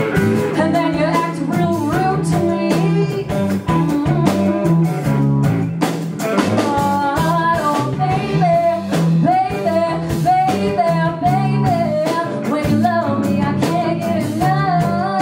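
A live band playing: a woman sings over an electric guitar and a drum kit.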